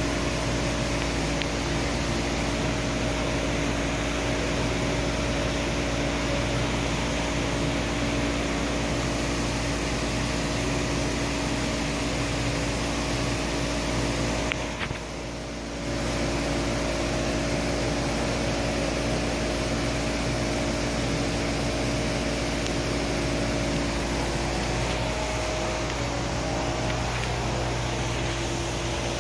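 Steady mechanical hum with several held tones over an even rushing noise, dipping in level for about a second roughly fifteen seconds in.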